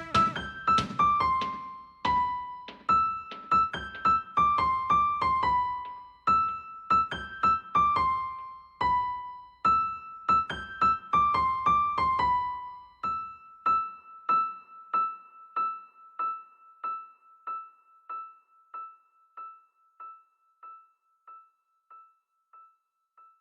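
Background music on a piano-like keyboard: a short melody of struck notes, then one high note repeated a little under twice a second, fading away.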